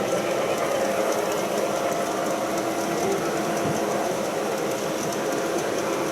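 G-scale model train running on garden-railway track: a steady small-motor hum with light wheel-and-gear rattle.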